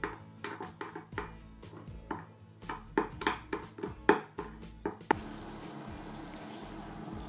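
Metal spoon stirring a thick doenjang and gochujang seasoning paste in a glass bowl, clinking and scraping against the glass several times. About five seconds in this gives way to a steady hiss of water bubbling in a stainless steel pot as it comes to the boil.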